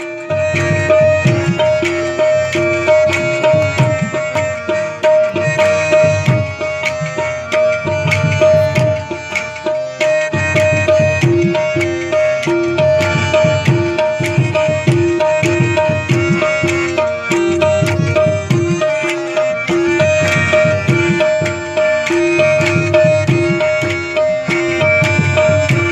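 Qawwali ensemble playing through a PA: harmoniums hold steady, repeating notes over a continuous tabla rhythm.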